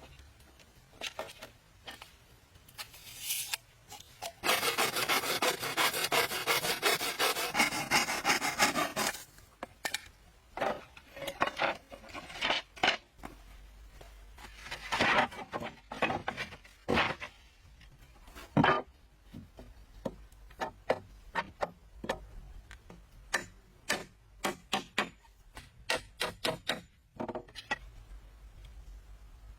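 Wood being rasped or scraped with a hand tool in a fast run of strokes lasting about five seconds, followed by many scattered sharp taps and knocks of wood on wood.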